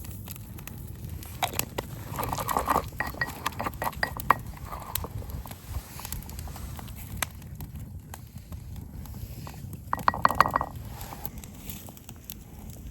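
Wood fire crackling with scattered sharp pops, and two short clusters of hollow knocking and clinking, one a couple of seconds in and one louder about ten seconds in.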